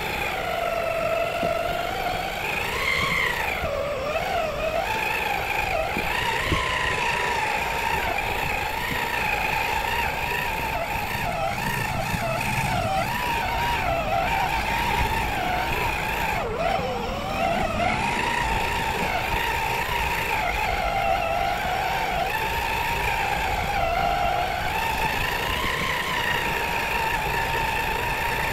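RC rock crawler's electric motor and geared drivetrain whining steadily, the pitch wavering up and down as the throttle is worked while it crawls along the trail.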